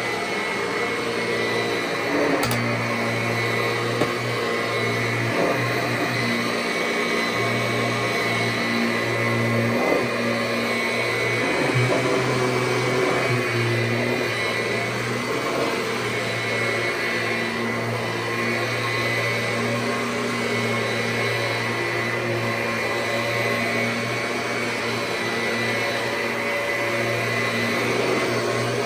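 1999 Kirby G6 upright vacuum running steadily over carpet, its motor and freshly fitted fan kit giving an even whine that now sounds normal after replacing a heat-warped fan. A few brief knocks, near the start and about ten seconds in.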